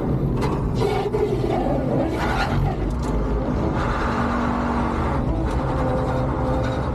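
BMW 325ti Compact drift car running on snow tyres with almost no grip: the engine drones steadily, with a few short bursts of tyre scrub in the first few seconds.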